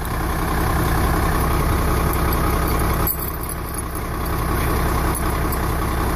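Rear-mounted diesel engine of a 1993 Gulfstream Friendship diesel-pusher motorhome idling steadily.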